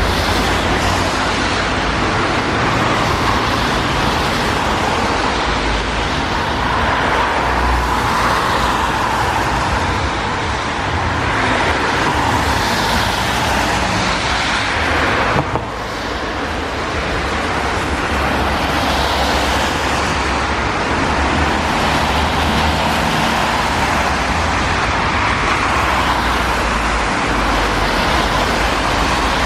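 Steady road traffic noise, with the hiss of passing cars swelling and fading every few seconds over a low rumble.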